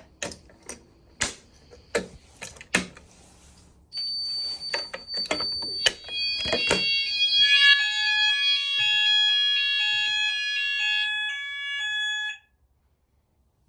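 A few clicks and knocks, then a high steady electronic tone from about four seconds in. Around six seconds several more fire alarm sounders join it at different pitches, some steady and some pulsing about twice a second. All of them cut off suddenly near the end, as the addressable fire alarm system is tested and then silenced.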